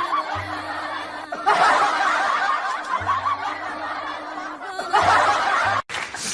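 A group of people laughing in three waves, the last breaking off suddenly near the end, over a faint steady low hum.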